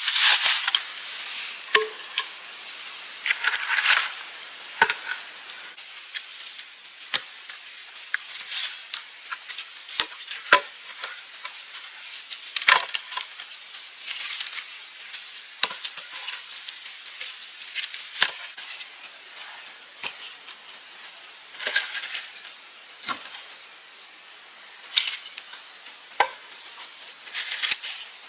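Sticks and branches being handled: irregular sharp wooden knocks, snaps and brief rustles every second or two, over a faint steady high-pitched tone.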